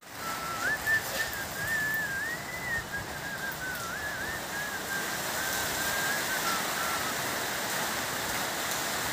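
Steady hiss of heavy rain. Over it, for about the first seven seconds, someone whistles a wavering tune.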